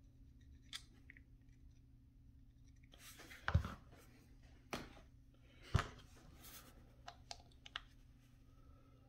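Scattered short clicks and knocks of hard plastic, with a couple of brief rustles, as a plastic miniature and its parts are handled and set down on a cutting mat during assembly.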